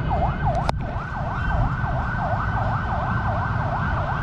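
An emergency vehicle's siren yelping, its pitch sweeping down and up about three to four times a second without a break. A sharp crack of bat on ball comes a little under a second in.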